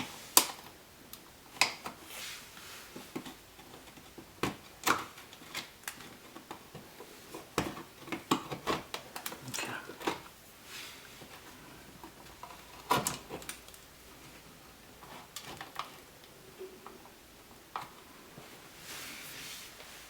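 Irregular sharp clicks, taps and scrapes of a screwdriver prying an old electrical outlet's painted-over mounting tabs loose from the drywall, busiest about eight to ten seconds in, with a longer scrape near the end.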